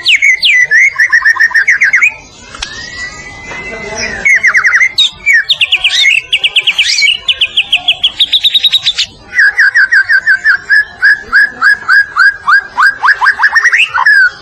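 White-rumped shama (murai batu) in full song: phrases of fast repeated whistled notes, a long held whistle about two seconds in, a run of rising notes in the middle, and in the second half a long run of quick repeated downward-slurred notes.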